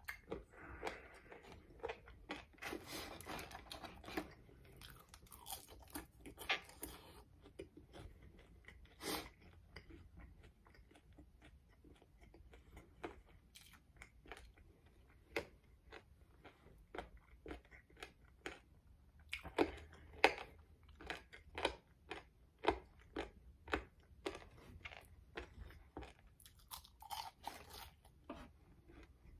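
A person eating crispy fried food close to the microphone: irregular crisp crunching bites with chewing in between, the loudest bites about twenty seconds in.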